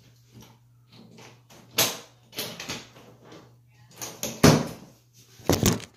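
A series of knocks, bumps and rustles as someone scrambles at a bathroom sink counter, leaning on and pushing off it. The loudest thump comes about two-thirds of the way through, and two more come near the end.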